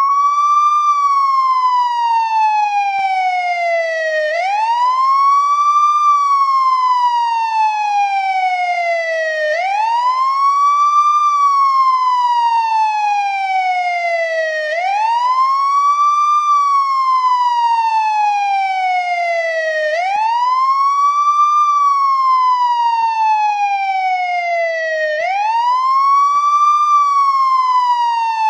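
Police escort car's siren sounding a steady, loud wail: each cycle sweeps up quickly in about a second, then falls slowly over about four seconds, repeating about every five seconds.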